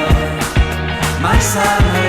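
Background music: a song with a singer over a steady drum beat of about two beats a second and a sustained bass line.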